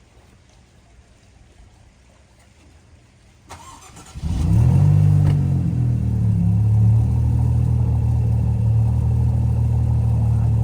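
A sports car's engine is cranked and catches about four seconds in, flaring up in revs and dropping back, then settling into a steady idle.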